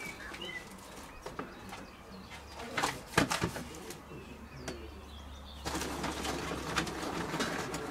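Birds calling outdoors, with a few sharp clicks and clatters about three seconds in and a steady rustling noise from about two-thirds of the way through, as a bag is handled beside a kettle barbecue.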